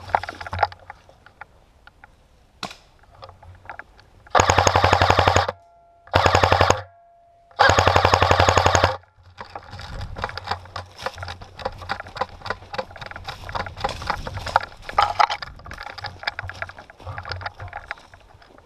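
Airsoft rifle firing three bursts on full auto, each about a second long, close to the microphone. Before and after the bursts come quieter irregular crunching and rustling, like footsteps through dry leaf litter.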